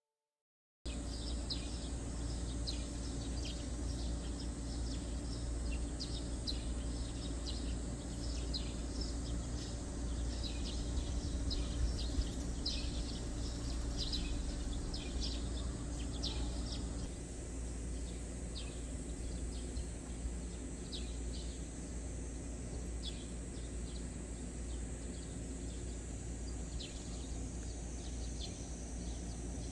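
Outdoor ambience starting about a second in: a steady low rumble under many short, high chirps from small birds or insects, which grow sparser in the second half.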